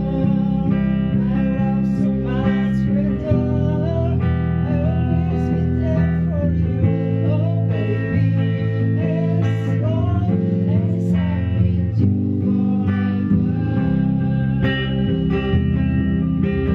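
Live band rehearsal of an original pop song: guitar playing chords under a wavering melody line that slides between notes.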